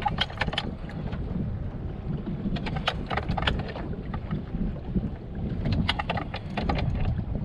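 Wind buffeting the microphone over a steady low rumble on a fishing boat. Three short bursts of rapid ticking come about every three seconds.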